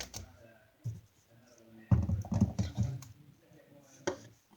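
Sharp clicks and scratching from objects being handled, with a louder jumbled stretch about two seconds in.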